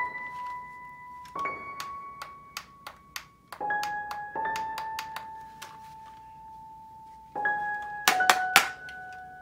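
Slow electric-piano background music, single sustained notes changing every second or two. Over it, sharp plastic clicks and knocks from a toy rifle being handled, with a quick cluster of louder clicks near the end as its magazine is handled.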